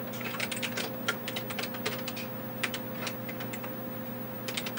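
Typing on a TRS-80 Model 12 keyboard: irregular runs of key clicks with short pauses, over a steady low hum.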